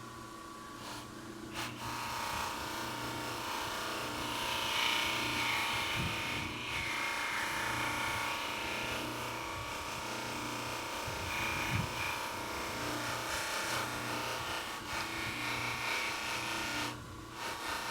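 Bench buffing wheel running while a stainless steel faucet ball is polished on it with compound: a steady motor hum under a hissing friction noise that rises and falls as the part is pressed against the wheel. The hiss drops away briefly about a second and a half in and again near the end.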